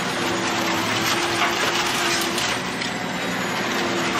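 Mobile scrap-metal shredder running and tearing up a car body in its hopper: a steady mechanical din with a few steady tones underneath and repeated sharp cracks of metal breaking.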